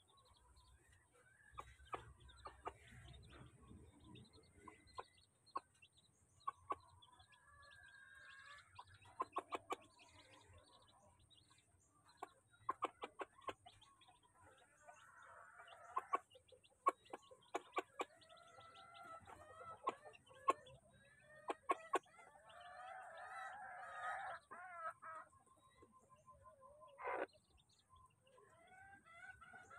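Domestic hen clucking and chicks peeping around a feed bowl. The calls are mixed with clusters of sharp taps from beaks pecking at the feed and the bowl. Longer pitched calls come in more strongly in the second half.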